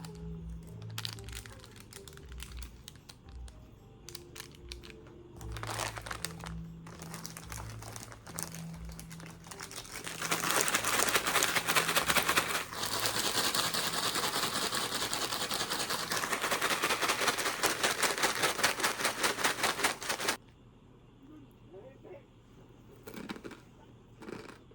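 Soft background music, then a loud crinkling rustle for about ten seconds that cuts off suddenly.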